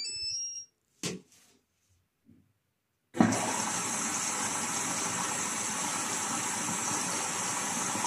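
Atlant 60У1010 front-loading washing machine: a short run of electronic beeps as the Start button is pressed. About three seconds in, a steady rush of water begins as the machine starts filling its drum for the wash.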